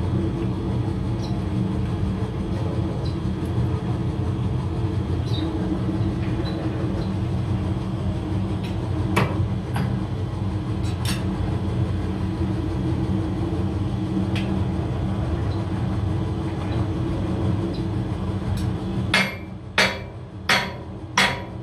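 Steady hum of a running press machine, with a few sharp metallic clicks. Near the end the hum stops and a hand hammer strikes the steel wheel rim plate four times, about 0.7 s apart.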